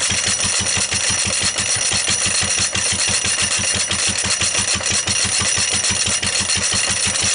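Lister D single-cylinder stationary engine running steadily with an even beat of firing strokes, belt-driving a corn grinder that is running empty on a test run.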